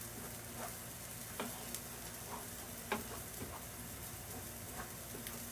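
Refried pinto beans sizzling quietly in a pan on the hob, with a few short scrapes and knocks of a utensil stirring them.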